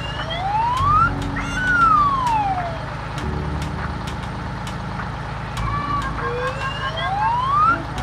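A siren-like wail that slides slowly up and down, each rise or fall taking about a second, over a steady ticking beat and low background tones of the cartoon's soundtrack. The wail drops out for a couple of seconds in the middle and comes back rising near the end.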